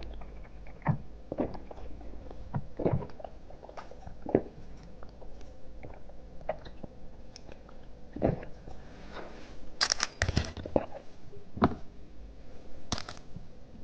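Close-up chewing and biting of candy: irregular crunches and mouth clicks, with a cluster of louder crackly crunches about ten seconds in and another near the end.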